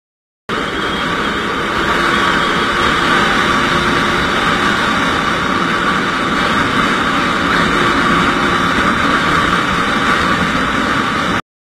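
Steady rush of wind and engine noise from a motorcycle under way, picked up by a bike-mounted action camera. It cuts in abruptly about half a second in and cuts off abruptly near the end.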